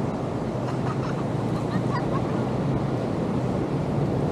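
Ocean surf washing onto the beach, a steady, unbroken rush of noise, with wind rumbling on the microphone.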